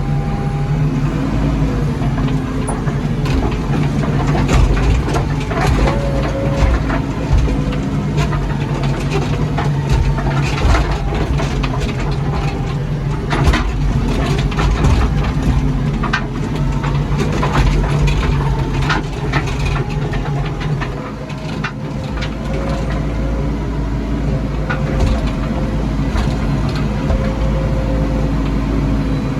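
JCB backhoe loader's diesel engine running steadily while the machine travels a rough road, its engine note drifting a little, with frequent rattles and knocks over it.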